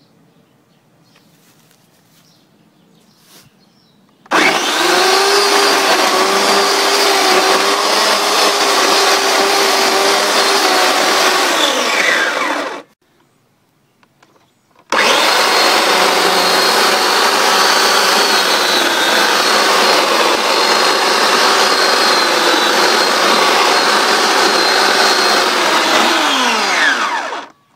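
Electric chainsaw running while cutting into a log, its chain lubricated with vegetable oil. It runs in two long bursts with a short pause between them. Each burst starts at once on a steady pitch, dips slightly at times, and winds down with a falling pitch as the motor coasts to a stop.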